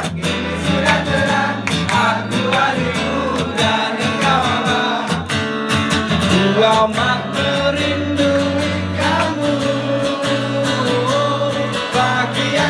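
Steel-string acoustic guitar strummed in a steady rhythm while a man sings into a microphone: a live solo song performance.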